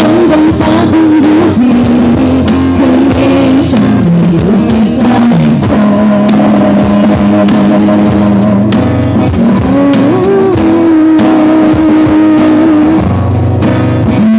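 Live band playing loud rock-style music, with a drum kit heard close up, its hits beating steadily, under guitar and long held melody notes.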